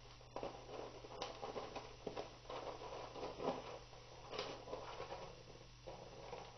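Cat shifting and scratching about in a plastic toilet-training litter tray, its paws rustling and crunching the litter granules in irregular scrapes, with a couple of sharper clicks against the plastic.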